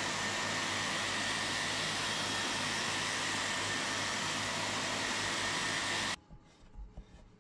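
Electric random orbital sander with dust extraction running steadily against an ash board. The sound cuts off suddenly about six seconds in, leaving only a few faint knocks.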